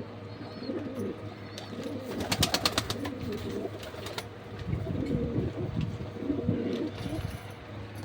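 Pigeons cooing in low, warbling calls, with a quick run of about ten sharp claps a little over two seconds in, over a steady low hum.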